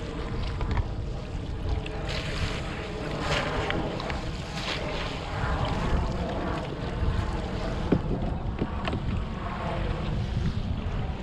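Wind buffeting the microphone over water lapping and splashing against a kayak hull on choppy water, with a sharp knock about eight seconds in.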